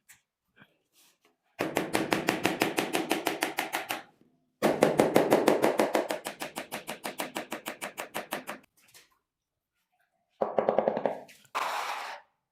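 Rapid, even knocking at about eight blows a second, in two long runs of a few seconds each, then a shorter run and a brief hiss near the end.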